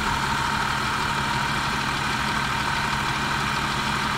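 Mercedes-Benz M111 four-cylinder petrol engine idling steadily with a valve-train ticking, which the owner puts down to the valves after the engine overheated with a blown head gasket.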